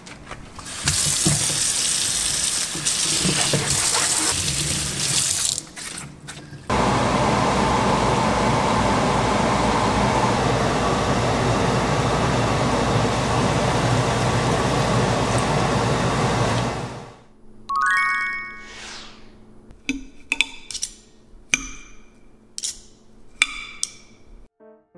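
Tap water running into a stainless steel sink, then food sizzling in a frying pan on a gas burner, then a knife and fork clinking and scraping on a plate in a run of sharp clicks with short ringing.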